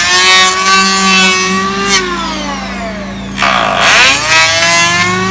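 Makita power tool's electric motor run in two long bursts, each a loud high whine. The first winds down about two seconds in, and the second starts a second and a half later.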